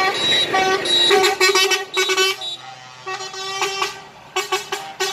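Truck air horns tooting in a rapid series of short blasts and a few longer ones, with brief gaps between them.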